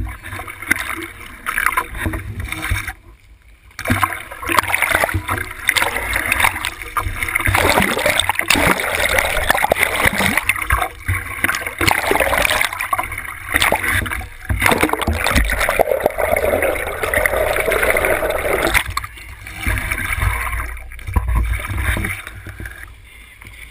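Seawater rushing, splashing and gurgling over a waterproof action camera held at the waterline against the side of a moving boat, the camera dipping in and out of choppy waves. The splashing is heaviest through the middle, with a short quieter lull about three seconds in.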